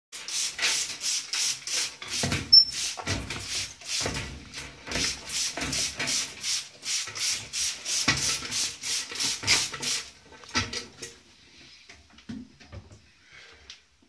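A parrot scraping at wood in a steady rhythm of about three or four rasping strokes a second. The scraping stops about ten seconds in, leaving a few faint clicks.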